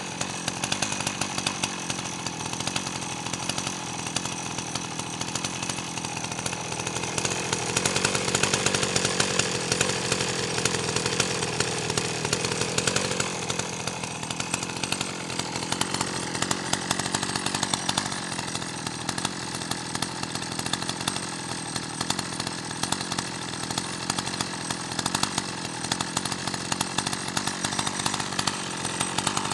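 Dolmar 120si two-stroke chainsaw running at idle, steady, with a few seconds in the middle where it sounds a little louder.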